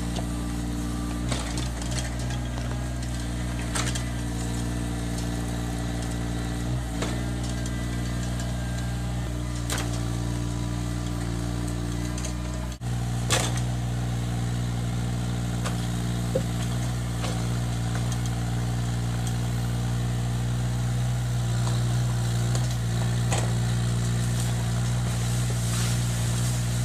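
Mini excavator engine running at a steady pitch, with a few short sharp knocks from the machine at work.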